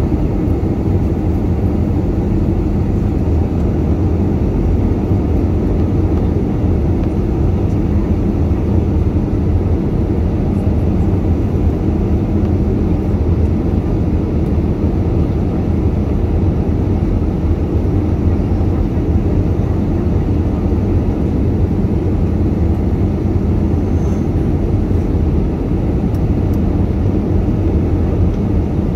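Jet airliner cabin noise from a window seat beside the turbofan engine during descent: a steady low rumble of engine and airflow.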